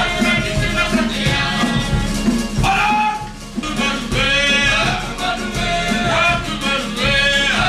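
Live Cook Islands string-band music: strummed ukuleles and guitars with a quick drum beat and voices singing along.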